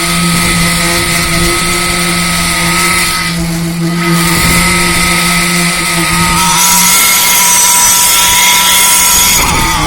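A construction machine's engine running steadily. Its note shifts slightly and a hiss grows louder about two-thirds of the way through.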